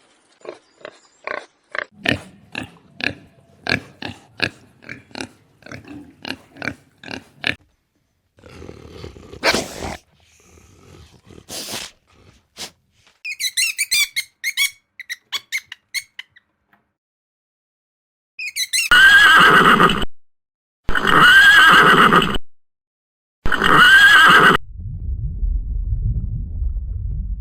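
A run of different animal calls: quick repeated short calls at about two a second, then high twittering, then three loud drawn-out calls each rising and falling in pitch, and low rumbling grunts near the end.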